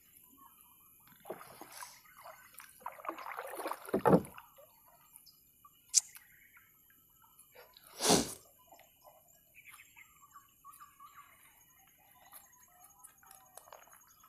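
Gill net being hauled hand over hand out of the water into a small boat: water dripping and splashing off the wet mesh, with a few louder splashes, the loudest about eight seconds in.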